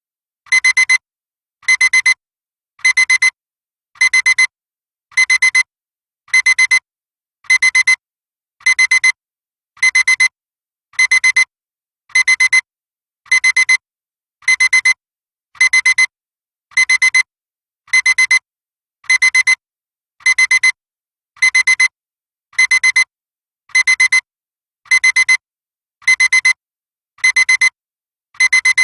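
Digital alarm clock beeping: a short cluster of rapid, high-pitched electronic beeps repeating about once a second, loud and perfectly regular.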